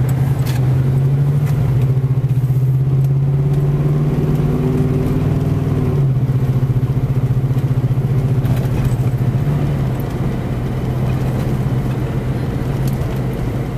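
Car engine and road noise heard from inside the cabin while driving slowly along a town street: a steady low hum that shifts slightly about six seconds in.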